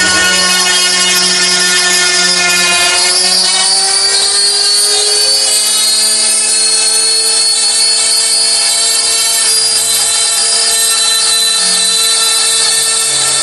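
SCR5040 CNC router spindle running at high speed with an engraving bit cutting acrylic sheet: a steady whine with a hiss of cutting. Its pitch rises slightly a few seconds in, then holds steady.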